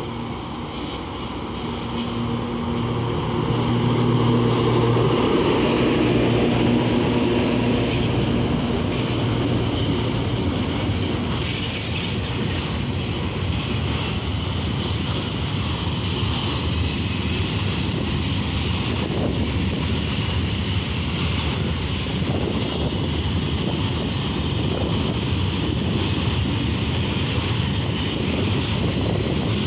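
Freight train passing close by. Its two diesel locomotives run with a steady low engine drone that grows louder over the first few seconds and fades as they go by. A long rake of hopper wagons then rolls past with a continuous rumble and clatter of wheels on the rails.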